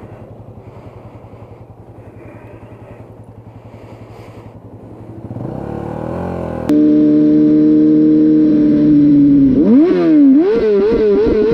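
A motorcycle engine running at low revs, rising near the middle. About two-thirds through it is replaced abruptly by a much louder tyre squeal from a car's burnout. The squeal holds one pitch, then wavers up and down.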